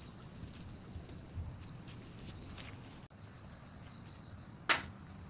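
Insects, crickets by the sound of it, trilling steadily in a fast pulsing chirr. A single sharp knock about four and a half seconds in is the loudest thing, and the sound cuts out for an instant about three seconds in.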